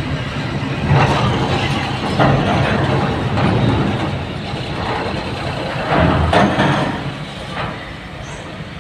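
An intercity coach bus's diesel engine pulling it up a steel ferry loading ramp and into the vehicle deck, a steady heavy rumble with several louder surges of clattering as it crosses the ramp, the loudest about six seconds in.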